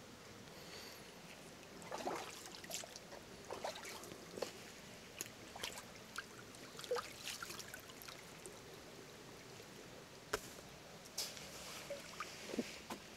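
Light, scattered splashing and sloshing as a freshwater eel wriggles through shallow creek water, over the faint steady trickle of the creek.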